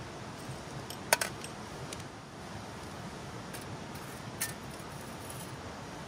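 Metal clinks as a small cast iron skillet is handled and set down on a perforated stainless steel stove grate: a sharp clink with a short ring about a second in, and a softer clink near the middle, over a steady background hiss.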